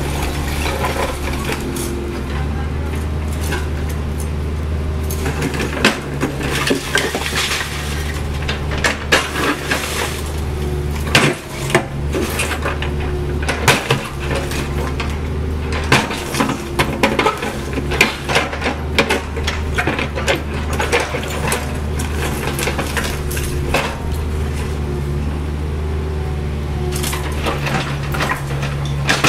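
CAT 304E CR mini excavator's diesel engine running steadily, its note swelling and easing as the hydraulics work, while the steel bucket scoops through broken concrete and brick rubble with frequent sharp clinks and clattering of the debris.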